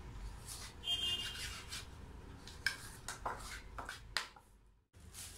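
Metal spoon scraping and knocking against a mixing bowl as whipped cream is stirred together with red food colour: a few irregular scrapes, with a light clink about a second in.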